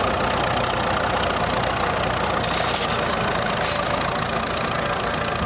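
Vintage tractor engine running steadily.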